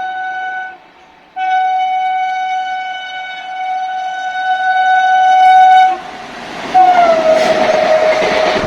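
Indian Railways locomotive horn sounding a long blast, a brief break, then a second long blast growing louder as the train approaches at speed. About seven seconds in the horn sounds again, its pitch dropping as the train passes, over the loud rush and rattle of the passing coaches.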